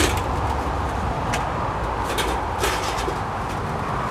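A few light clinks and knocks of thin steel shed profiles being lifted and shifted in their cardboard box, over a steady background rumble.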